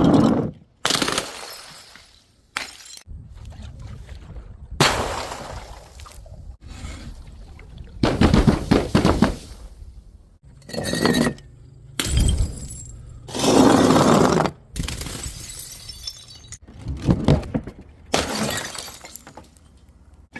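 Glass bottles smashing one after another: about ten separate crashes of breaking glass, each with a short clatter of shards, cut together back to back.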